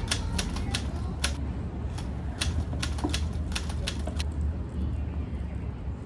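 Dry twigs snapping and crackling at a small wood fire: sharp, irregular clicks a few times a second that stop about four seconds in. A steady low hum runs underneath.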